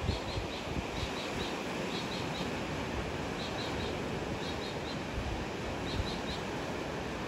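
A small bird calling in short, high chirps that come in quick runs of three or four, repeated several times, over a steady rush of wind and sea.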